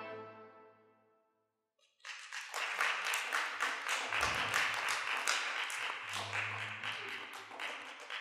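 A band's held final chord fades away, and after about a second of silence an audience starts applauding, keeping up steady clapping.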